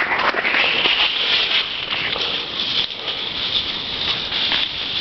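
Dry fallen leaves and twigs crackling and rustling under a walking horse's hooves, a continuous crunching patter.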